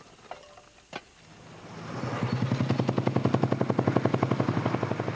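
A vehicle engine fades in about a second in, then runs loud and steady with a fast, even pulsing over a low hum.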